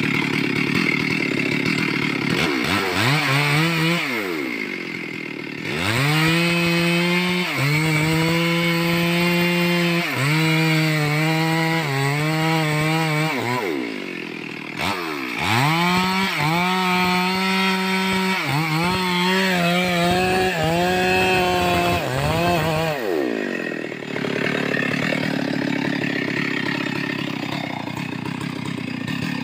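Two-stroke chainsaw cutting wood: it is revved up briefly, then held at full throttle through two long cuts, its pitch dipping for a moment several times as the chain bites. It drops back to a rough idle between the cuts and near the end.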